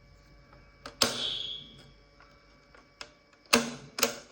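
Several sharp clicks or knocks, the loudest about a second in and two more in the last second, each followed by a brief ringing tail.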